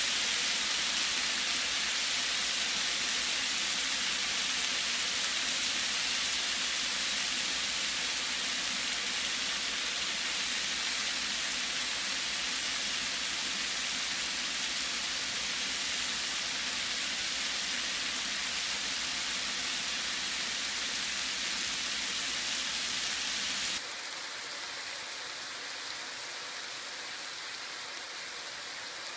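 Food sizzling in a frying pan: a steady crackling hiss with a low hum beneath it. About 24 s in, the sound drops suddenly in level and the hum stops.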